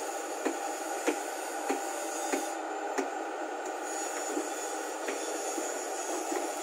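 Hyundai 220 crawler excavator's diesel engine running steadily under load as the machine swings and digs with its hydraulics, with a sharp regular click about every half second that fades in the second half.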